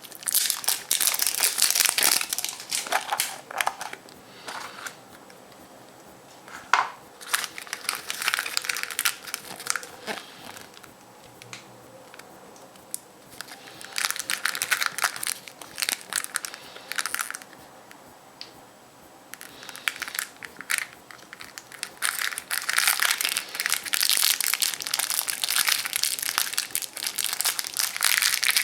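Foil wrapper of a chocolate surprise egg being unwrapped and crumpled by hand: several bouts of crinkling with short pauses between them, and a single sharp snap about seven seconds in.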